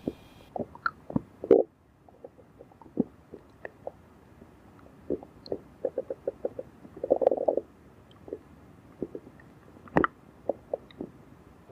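Hungry stomach gurgling: scattered short pops and squelches. They come thicker about five to seven seconds in, with a longer gurgle near seven seconds and a sharper pop about ten seconds in.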